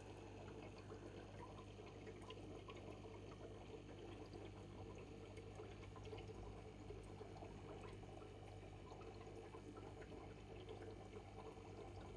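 Faint, steady aquarium water noise, the flow of the tank's filter, over a low steady hum.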